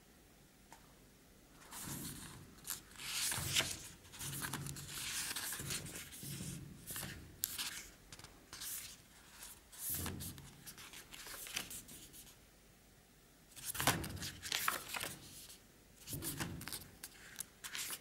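Pages of a hardcover photo book being turned by hand: repeated paper rustles and swishes with short pauses between them. They come thickly through the first half and again in a few single turns later on.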